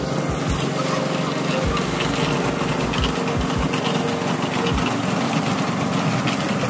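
Small engine of a portable concrete mixer running steadily.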